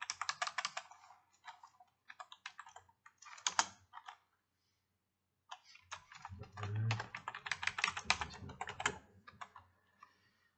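Typing on a computer keyboard: quick runs of key clicks in three bursts, with a pause of about a second and a half in the middle and a few scattered keystrokes near the end.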